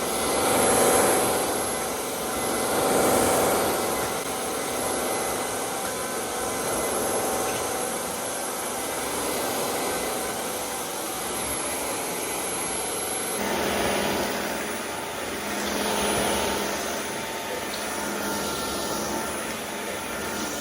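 Joyami cordless wet-dry floor vacuum running with a steady whirring noise that swells and eases every couple of seconds. Its tone shifts about two-thirds of the way through.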